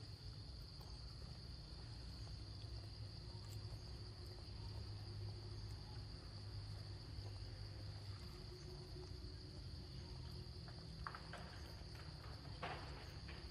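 Steady high-pitched drone of insects over a low rumble, with a few faint clicks near the end.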